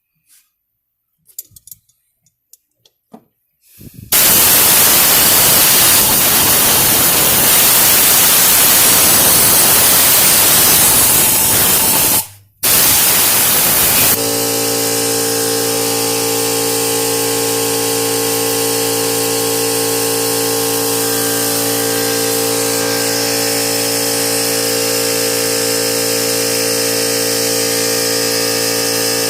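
A few light clicks, then a loud, even spraying hiss for about ten seconds, broken once briefly, then a steady mechanical hum with several held pitches.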